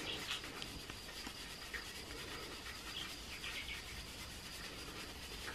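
Faint rubbing of a wet brush worked over fresh cement, smoothing off its edges.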